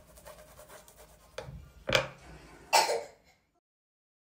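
Soft rubbing of a pastry brush spreading oil over a thin brick pastry sheet on a wooden cutting board, then a knock about two seconds in and a short scraping rustle. The sound then cuts off to silence.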